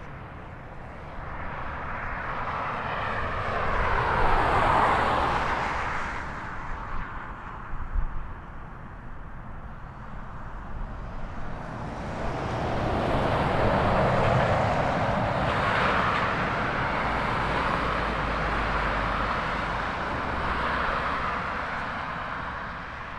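Boeing 767-300 freighter's twin jet engines whining at taxi power as it taxis onto the runway. The whine swells twice, first about four seconds in and again from about twelve seconds on.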